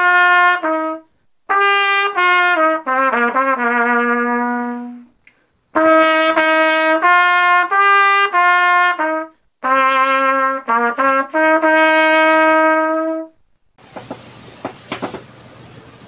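Unaccompanied trumpet playing a slow melody in phrases separated by short breaks, with long held notes, some with vibrato. The playing stops about 13 seconds in, leaving a faint steady hiss with a few small clicks.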